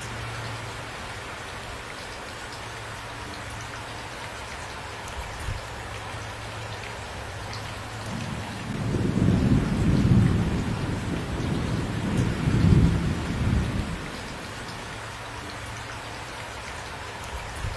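Steady rain falling, with a rolling rumble of thunder about halfway through that swells twice over several seconds and then dies away under the rain.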